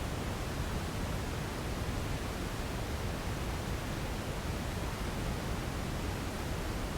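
Steady electronically generated noise of the kind played for sleep: an even, unchanging hiss, heavier in the low end than at the top.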